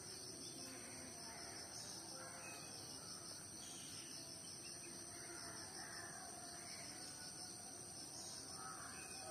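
Faint, steady insect chirring with a few scattered bird chirps.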